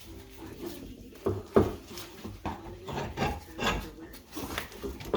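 A series of irregular knocks and scrapes, about eight, from hand work on the rear suspension parts, the loudest about one and a half seconds in.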